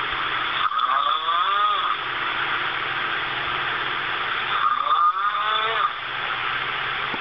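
A sleeping person snoring really loudly: two long, wavering snores about four seconds apart, over a steady hiss.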